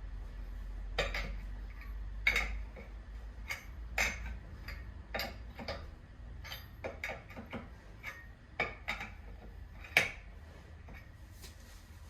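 A string of irregular, sharp metallic clinks and clicks from hand tools and hardware being handled during a car tyre change. The loudest clink comes about ten seconds in.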